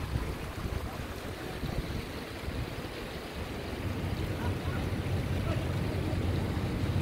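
Shallow stream running over rocks and low stone steps, a steady rushing. Wind rumbles on the microphone, growing stronger about four seconds in.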